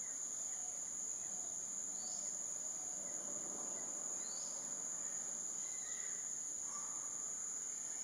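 Insects giving a continuous, steady high-pitched drone, with a few faint short chirps over it.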